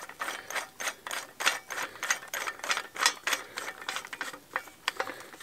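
Redcamp high-carbon steel folding shovel's locking collar being turned by hand at the blade hinge to lock the head in place: a quick, irregular run of small metal clicks.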